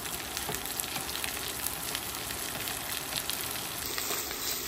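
Diced onion and jalapeño frying in hot bacon grease: a steady sizzle with fine crackles.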